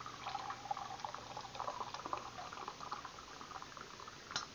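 Hot, freshly boiled water pouring from a stovetop kettle into a glass measuring cup, a steady splashing stream. A single sharp click comes near the end.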